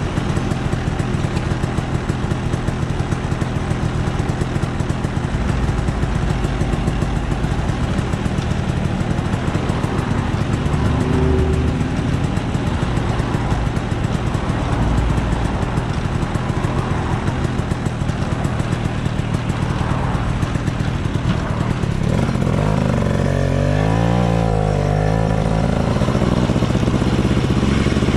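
A KTM 250 SX two-stroke single-cylinder engine in a Vespa PX 200 scooter, idling steadily. From about 22 seconds in the revs rise and fall a few times, and near the end the pitch climbs as the scooter accelerates away.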